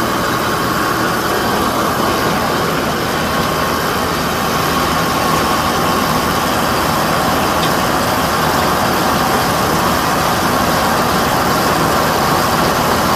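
Machinery running steadily at a constant speed: an engine driving a Bear Cat 1260 feed grinder.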